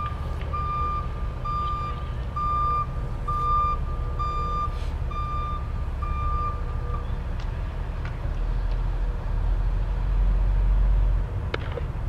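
Vehicle reversing alarm beeping at a steady pitch, just under two beeps a second, stopping about seven seconds in. Under it runs a steady low rumble that swells for a few seconds near the end.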